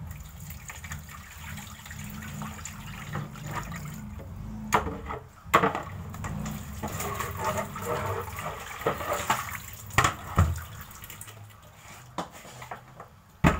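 Water sloshing and pouring in a tilted plastic basin of vegetable wash water, with several sharp knocks along the way.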